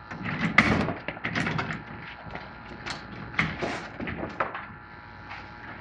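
Plastic fishing kayak on wheeled landing gear being lifted by the bow and rolled along: a run of knocks, clunks and scrapes from the hull and wheel gear, thinning out near the end.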